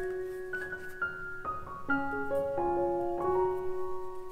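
Background music: a slow melody of held notes.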